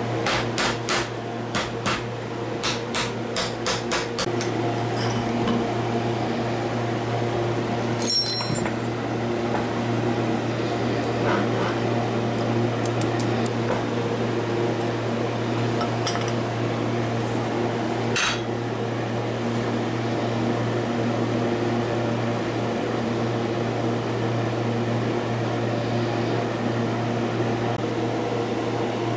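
Hammer blows on the metal housing of an old airbrush-compressor electric motor as it is knocked apart: a quick run of sharp metal taps in the first few seconds, over a steady hum. Later come a single ringing metallic clink and one more knock.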